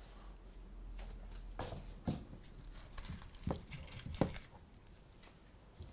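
Red onions being picked out of an earthenware bowl by hand: faint rustling of the papery skins and several light knocks and clicks.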